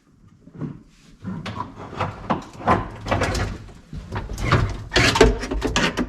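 Old reverse cable being pulled out of a 2003 Sea-Doo Sportster's hull: a run of irregular scrapes, knocks and rattles, starting about a second in and getting louder toward the end.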